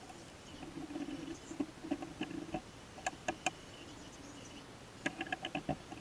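Small metal clicks and light scraping as hand tools work on the mechanism of an Edwards Adaptabel school bell: a scraping sound for the first couple of seconds, three sharp clicks about three seconds in, and a quick run of clicks near the end.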